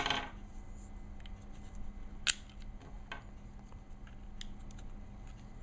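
Small metal clicks and taps of Glock pistol parts being handled and fitted during reassembly, with one sharp click a little over two seconds in and a few fainter ones after it.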